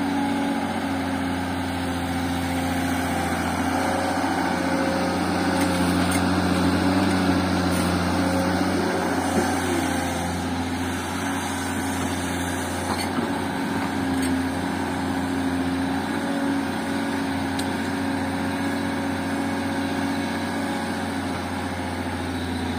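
Tata Hitachi excavator's diesel engine running steadily while the bucket digs into the soil, the engine note swelling a little under load partway through.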